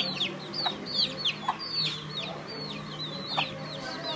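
Chicks peeping continuously, a quick run of high, downward-sliding peeps several times a second, with a few short lower clucks among them.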